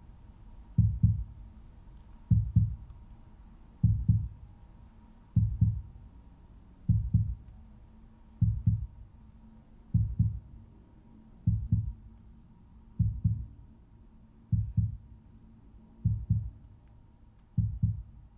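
Slow, steady heartbeat: low double thumps in lub-dub pairs, about one pair every one and a half seconds.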